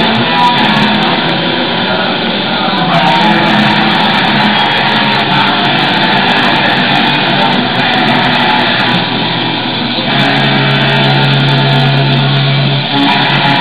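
Loud rock music with electric guitar, running steadily throughout.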